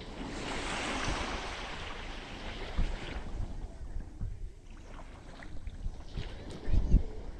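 Sea waves washing onto the beach. One wave's rush fades after about three seconds, and wind buffets the microphone in low thumps, strongest near the end.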